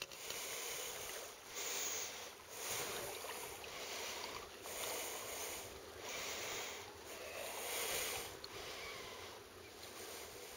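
Water rushing and lapping along the hull of a sailing kayak moving through small waves, swelling and easing every second or two.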